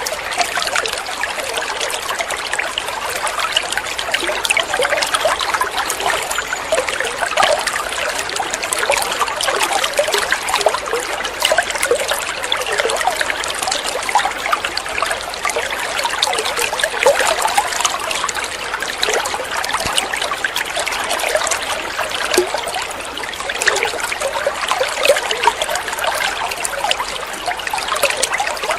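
Running water trickling and splashing steadily, a continuous bubbling rush full of small quick splashes.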